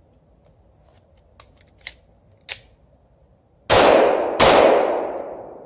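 Two 9mm shots from a Glock 19 pistol fired about three quarters of a second apart. Each is loud and sharp, and their echo fades away over a couple of seconds. Three light clicks come before the shots.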